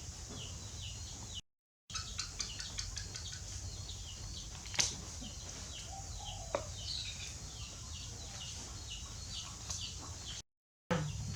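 A bird chirping in a quick series of short falling notes over a low steady hum, with one sharp click about five seconds in. The sound drops out to silence briefly twice.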